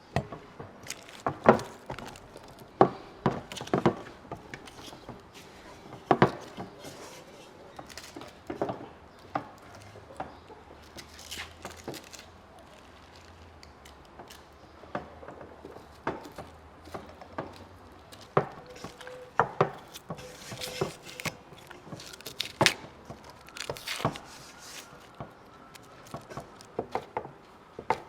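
A run of irregular, sharp knocks and taps, like wood being struck or chopped. A few loud strokes stand out among lighter ones, spaced unevenly a second or more apart.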